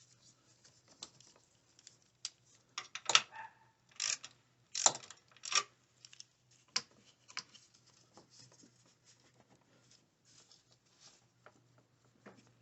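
Irregular clicks and clinks of small metal tools and battery hardware being handled, in a cluster of louder knocks a few seconds in.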